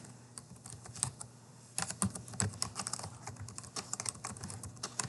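Computer keyboard typing: a few scattered keystrokes, then a quick, continuous run of keystrokes from a little under two seconds in.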